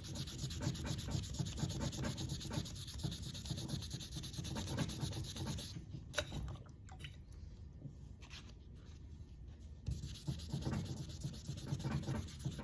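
Brass putter head being wet hand-sanded with 2000-grit sandpaper on a foam pad: quick back-and-forth rubbing strokes, which stop for a few seconds about halfway through and then start again.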